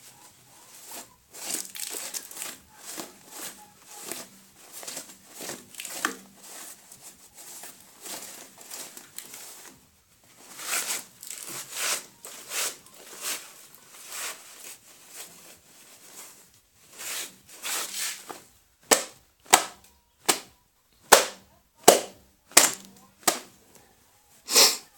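Quick brushing strokes cleaning corn dust off the forage chopper's electric motor, several a second. Over the last few seconds they become sharper, louder strokes a little under a second apart. The motor itself is not running.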